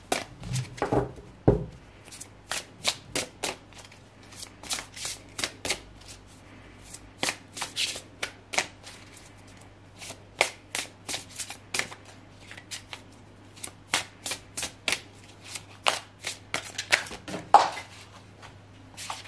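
A deck of Kuan Yin oracle cards being shuffled by hand: a rapid, irregular run of short card flicks and slaps, several a second, broken by brief pauses.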